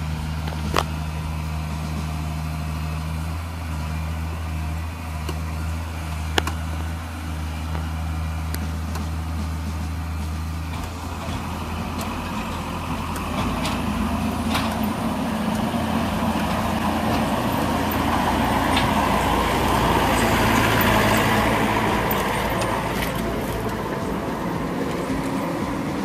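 Diesel engine of a Komatsu crawler excavator, a steady low hum at first, then from about eleven seconds in running harder and louder as the machine works, swelling toward the end. A couple of sharp knocks early on.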